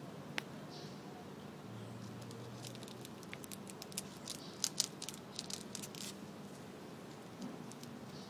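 Fox squirrel gnawing a fibrous green stalk: sharp clicks and snaps of its teeth tearing the fibres, coming in a quick run through the middle of the clip, with sparser nibbling clicks before and after.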